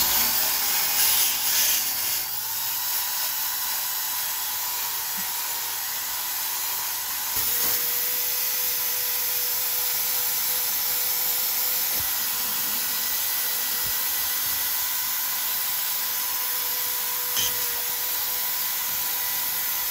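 Electric drill spinning a wire brush to scrub rust and dirt off a steel exhaust pipe: a steady scraping run with a motor whine, whose pitch changes about seven seconds in.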